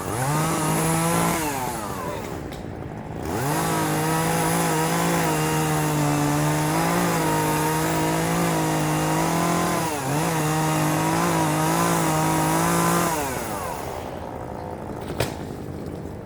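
Chainsaw revved up to full throttle in bursts: a short rev at the start, then held high for about ten seconds with a brief dip partway, before dropping back toward idle. A single sharp click near the end.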